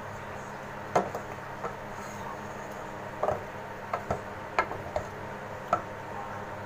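Wooden spatula knocking and scraping against an aluminium pot while stirring chicken pieces, with about eight sharp, irregular knocks, the loudest about a second in, over a steady hum.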